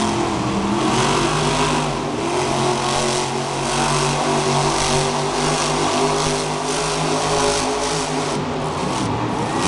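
Monster truck's supercharged V8 engine revving, rising in pitch near the start, then running at a fairly steady pitch as the truck drives and turns.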